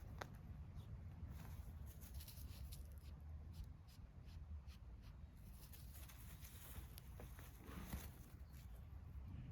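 Near silence: faint scattered ticks and rustles of a cat playing with a ball of wool, over a low steady hum.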